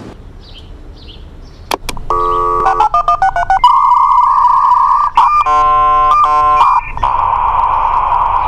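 Dial-up computer modem connecting. Two clicks, then a quick run of dialing tones, a steady beep, warbling handshake tones, and about seven seconds in the steady hissing static of the modems negotiating the line.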